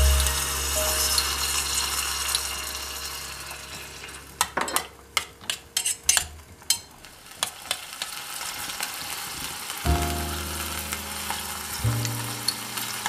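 Food sizzling in a miniature saucepan on a tiny burner. About four to eight seconds in, a run of sharp clicks and scrapes comes from a utensil working against the pan as chopped potatoes are added and stirred in. Background music plays under it.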